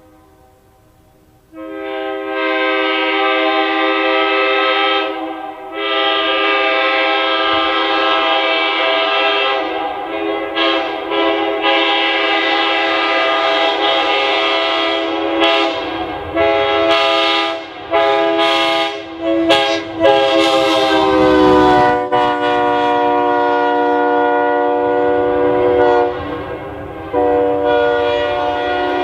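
Locomotive multi-chime air horn sounding a sequence of long and short blasts as the train runs by, a loud chord of several notes. About two-thirds of the way through the chord drops in pitch as the locomotive passes, with the low rumble of the train beneath.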